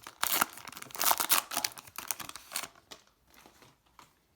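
A 2020 Panini Contenders trading card pack's wrapper being torn open and crinkled, in quick loud bursts for the first two and a half seconds or so, then giving way to faint light rustles.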